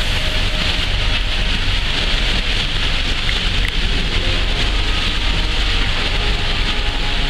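White grapes and their juice pouring from a tipped bin into a hopper: a steady rushing, splashing pour over a low engine rumble.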